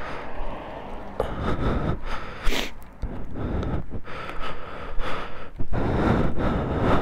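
Wind buffeting the microphone in irregular gusts.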